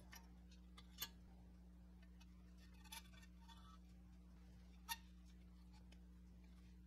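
A few short clicks of steel axles and wheels knocking against the toy car's sandblasted steel body as they are fitted, the sharpest about a second in and near five seconds, with a brief rattle near three seconds. Underneath is a low steady hum.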